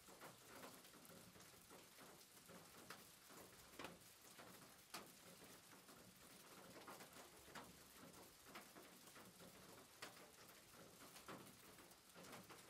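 Near silence: faint room hiss with scattered soft clicks and taps.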